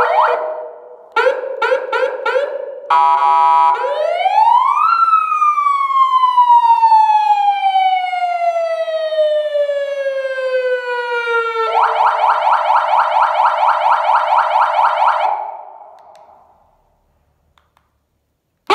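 PS-940MP3 400 W electronic siren amplifier sounding through two horn speakers as it is switched from tone to tone. A short pulsing tone and a brief steady tone come first. Then the pitch rises once and falls slowly over about seven seconds, and a fast warble follows, fades out and leaves about two seconds of silence before another tone starts right at the end.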